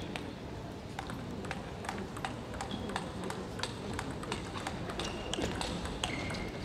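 Table tennis ball clicking sharply off the paddles and table during a rally, about two to three ticks a second, over a low crowd hum. A few short high squeaks come in between.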